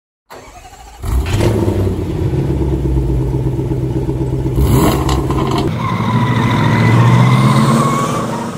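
A motor vehicle engine running: faint at first, much louder from about a second in, with a brief rising whine about halfway through and swelling toward the end before it stops.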